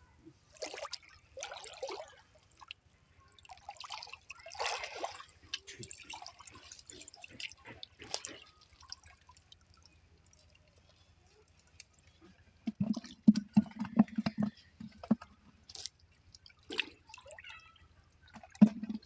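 Water splashing and dripping in irregular bursts as a fishing net is hauled and handled in the water. About two-thirds through comes a louder run of rapid low knocks.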